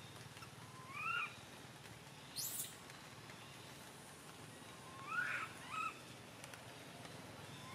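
Baby macaque crying in short calls that rise and fall in pitch: one about a second in, two close together past the middle, and another at the end. A brief high rustle sounds between the first and second calls.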